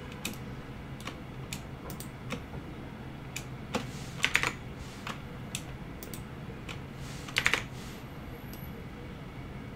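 Computer keyboard keystrokes and mouse clicks, scattered single clicks with two louder clusters of key presses about four and seven and a half seconds in.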